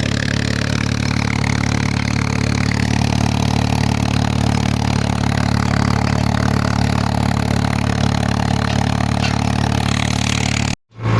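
Tractor engine running steadily under load while pulling a tillage implement through field residue. The sound cuts off suddenly near the end.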